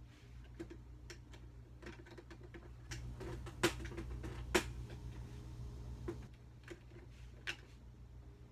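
Scattered sharp plastic clicks and taps from a makeup palette case being handled, with two louder clicks a little under a second apart near the middle.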